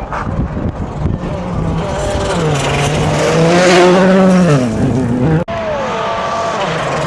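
Volkswagen Polo R WRC rally car's 1.6-litre turbocharged four-cylinder engine approaching at speed and growing louder, its revs falling sharply a little after four seconds in. A brief break in the sound about five and a half seconds in, then the engine is heard again at steadier revs.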